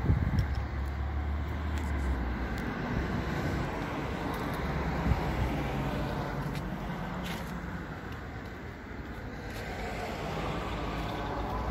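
A car engine passing on a road, with wind buffeting the microphone and a steady low rumble throughout.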